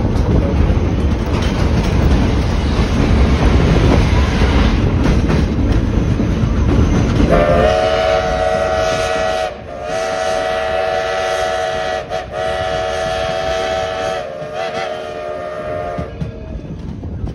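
Edison No.1 4-4-0 steam locomotive running with a loud, dense noise. About seven seconds in, its steam whistle blows several notes at once in three long blasts with two short breaks, the last one the longest. The whistle stops a little before the end.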